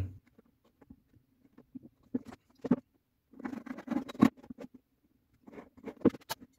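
Light taps, clicks and short scratchy rubbing of hand tools being handled on a workbench. A pencil draws lines along a steel ruler on masking tape, and the ruler and calipers are shifted and set down. The scratching comes in short passes about halfway through and again near the end.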